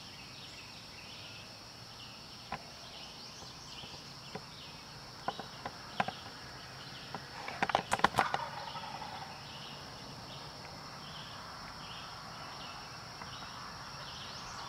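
Insects droning steadily in woodland, with a soft chirp repeating about twice a second and a few scattered clicks or rustles. A short cluster of sharper knocks comes about eight seconds in.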